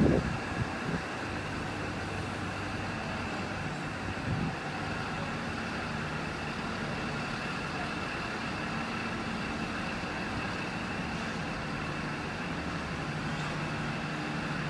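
Vintage passenger carriages rolling slowly along a platform: a steady rumble with a faint steady whine, a loud clunk at the start and a smaller one about four seconds in.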